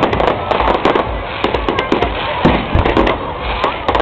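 Fireworks display: shells bursting in a rapid, irregular run of bangs and crackles.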